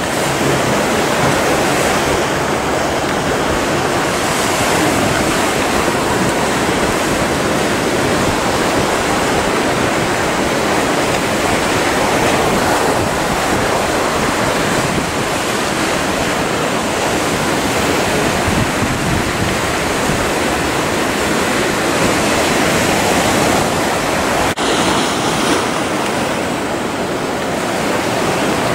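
Rough, choppy sea in a harbour entrance channel: a loud, steady rush of breaking and churning waves.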